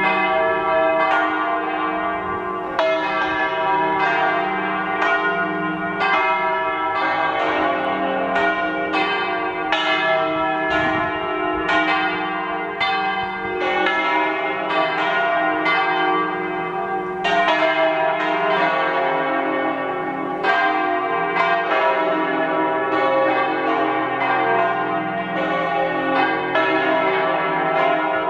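Bells ringing in a long, steady run of strikes, about one a second, each note ringing on into the next.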